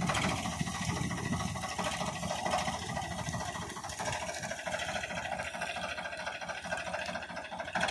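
Farmtrac tractor's diesel engine idling steadily, with an even rhythmic beat.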